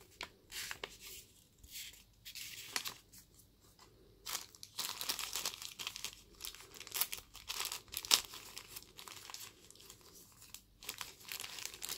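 Thin plastic packaging bag crinkling and rustling in irregular bursts as it is handled and opened to take out a cable, with a sharper crackle about eight seconds in.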